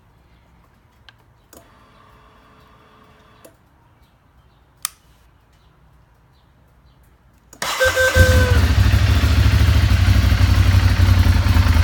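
Ducati Monster 796 air-cooled L-twin started: after a faint hum and a click, it cranks and catches about seven and a half seconds in, with a brief whine that falls slightly as it fires, then idles loudly and steadily. The owner does not know what causes the unusual start-up noise and wonders if it is normal.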